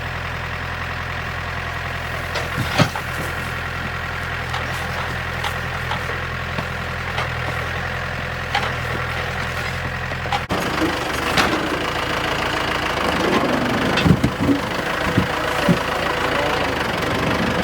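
An engine idling steadily. About ten seconds in it changes abruptly to a rougher, noisier running sound with several sharp knocks and clunks.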